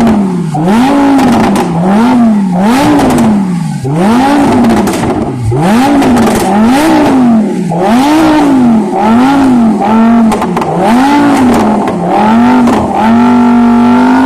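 Lamborghini engine revved over and over in quick blips, the pitch climbing and dropping back about once a second, then held at a steady raised rev for a second or so near the end.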